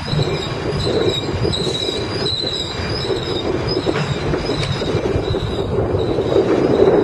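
Loaded flatcars of a concrete-tie work train rolling past close by: steel wheels rumbling on the rails, with a steady, slightly wavering high wheel squeal and a few sharp clicks.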